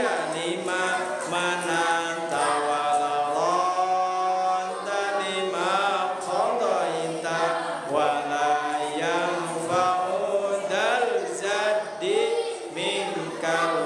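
A man chanting Arabic dhikr into a microphone after prayer, a slow melodic line with long held notes and sliding pitch.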